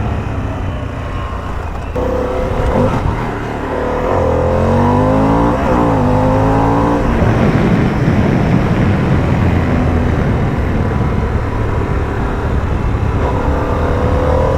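Harley-Davidson Pan America's Revolution Max 1250 V-twin running under way, its note rising and falling with the throttle about halfway through and again near the end, over a steady rushing noise.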